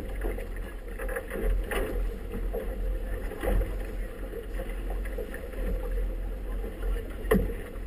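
Wind of about 17–20 knots buffeting the microphone, over choppy water slapping against a boat's inflatable hull. A few sharper splashes or knocks stand out, the loudest near the end.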